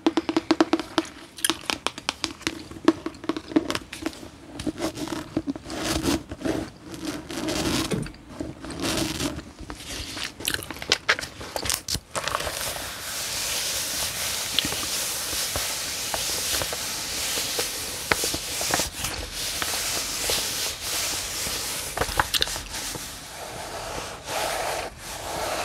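Long fingernails tapping and scratching on a hardcover book's cover in quick, uneven clicks. About halfway through this gives way to a steady papery scraping and rustle as the book's pages are fanned and rubbed, in close-miked ASMR handling.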